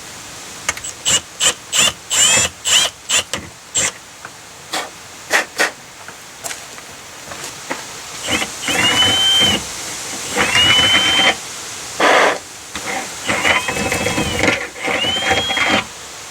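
Power drill running a bit through a drilled hole in a foam-core door to clear out the foam. It comes first as a quick series of short trigger pulses, then as four longer runs of about a second each, each with a whine that rises and holds.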